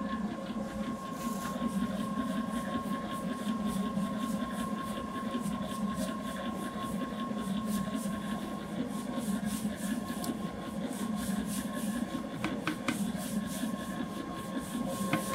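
Bakery stand mixer running with its dough hook turning through flour: a steady motor hum with a fast, even rhythm.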